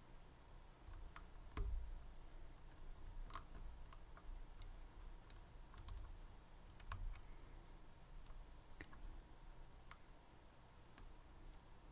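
Faint, irregular small clicks and taps of a pick working the pins inside a Medeco M3 six-pin high-security lock, with a soft low knock of handling about two seconds in.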